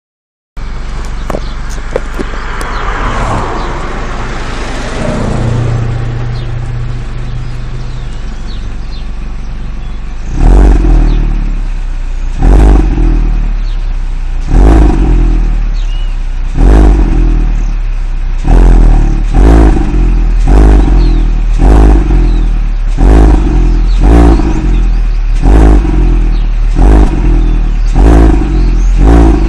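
Peugeot 206 GTi's 2.0-litre four-cylinder engine, with a K&N replacement filter in the original airbox and the stock exhaust line. It runs steadily for about ten seconds, then is blipped again and again, each rev rising and dropping back, about one every second or two. The peaks are loud enough to saturate the recording.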